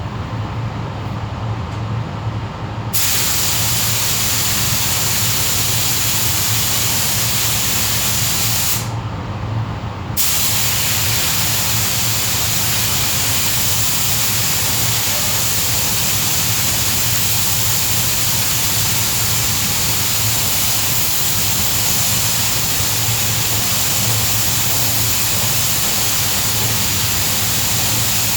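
Compressed-air paint spray gun hissing steadily while spraying primer onto the repaired tailgate, with a steady low hum underneath. The spraying starts about three seconds in, pauses briefly around the tenth second, then runs on.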